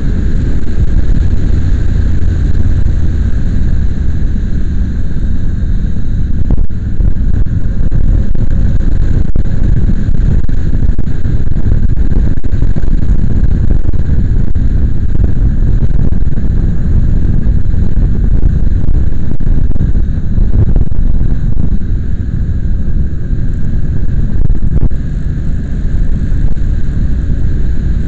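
Steady, loud rumble of wind buffeting the microphone mixed with road noise from a moving vehicle, with no distinct engine note standing out.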